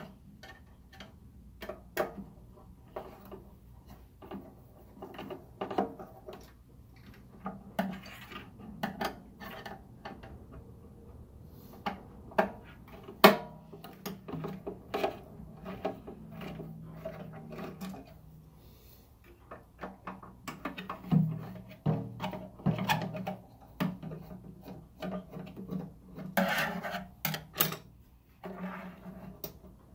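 Irregular clinks, knocks and scraping of hand tools and metal parts being handled while a tankless water heater is taken apart, busier in the second half.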